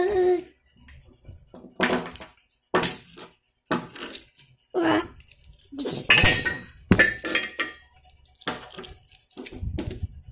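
Small plastic toy cars clattering and knocking against each other and a hard floor: about eight sharp, irregular knocks and clinks.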